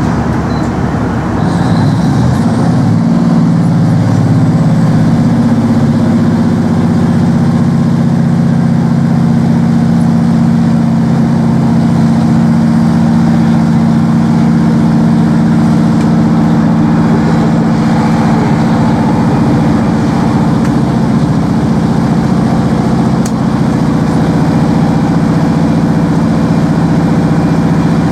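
Inside a Class 153 single-car diesel railcar under way: its underfloor Cummins diesel engine rises in pitch over the first few seconds, then runs steadily under power, over a constant rumble of the train running along the track.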